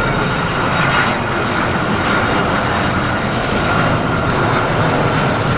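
Jet aircraft engines running, a loud steady rushing noise with a thin whine held on one pitch.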